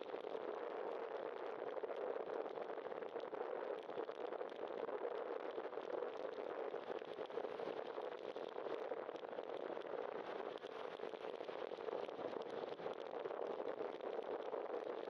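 Steady rushing riding noise from a bicycle on wet pavement: wind over the bike-mounted camera and tyre hiss on the wet road, an even hiss with no separate knocks or tones.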